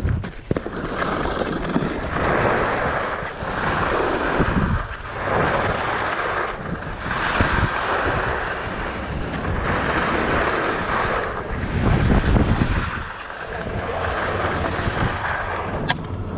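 Skis hissing and scraping over packed snow, swelling and fading with each turn, with wind buffeting the microphone in low rumbling gusts.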